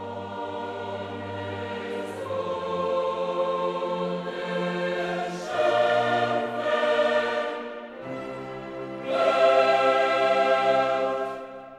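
Background choral music: a choir holding long sustained chords that change every few seconds, swelling louder about nine seconds in and dropping away near the end.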